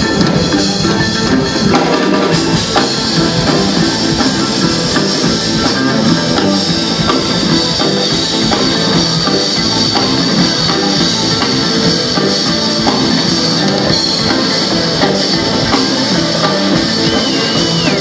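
Live jazz-fusion band playing a loud, dense passage, with drum kit, electric bass and guitar and an oud, heard from the audience over the stage PA.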